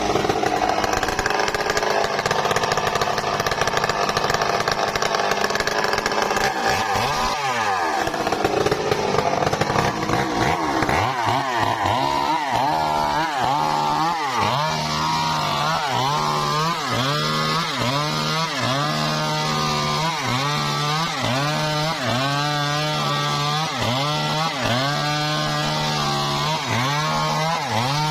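Engine-driven saw cutting trembesi timber, running steadily at first; about eleven seconds in, its engine note starts dipping and recovering about once a second as the blade loads in the wood.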